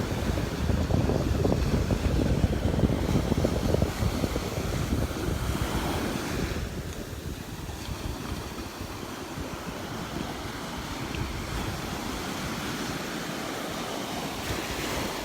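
Gulf of Mexico surf washing onto the beach, with wind buffeting the microphone. The wind rumble is strong for the first six seconds or so, then eases, leaving a steadier wash of surf.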